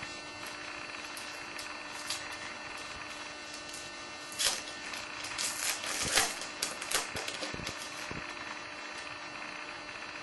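Trading cards and foil pack wrappers being handled, with brief rustles and crinkles that cluster about four to seven seconds in, over a steady low hum.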